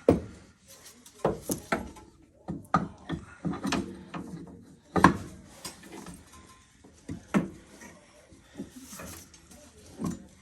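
Irregular metal clunks, knocks and scraping from a new Polaris Ranger 800 rear axle being worked back into its hub, with the sharpest knock about five seconds in.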